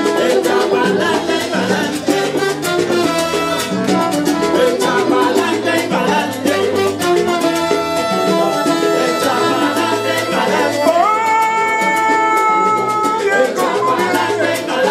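Live salsa band playing, with trombones and Latin percussion driving a dense rhythm. About eleven seconds in, a long held note scoops up into pitch and holds for a couple of seconds.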